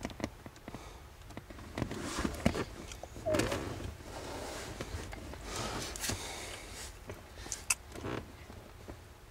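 Faint handling noises of hands working car wiring and a plastic T-tap wire connector: soft rustling with a few small sharp clicks.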